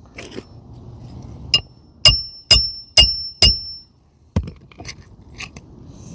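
Hammer driving a roofing nail into an asphalt shingle: five sharp, ringing metal-on-metal strikes about half a second apart, then a few softer knocks.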